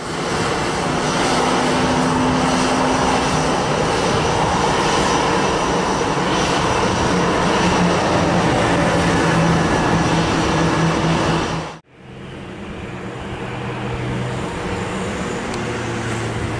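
Airbus A320 jet engines running at low thrust as the airliner taxis along the runway to line up, a loud steady rumble with a low hum. The sound cuts off abruptly about 12 seconds in and comes back quieter, slowly building.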